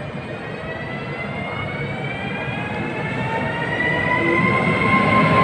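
Siemens ES 64 F4 (Class 189) electric locomotive passing close, its traction drive whining in several tones that rise slowly in pitch over the rumble of its wheels on the rails, growing louder.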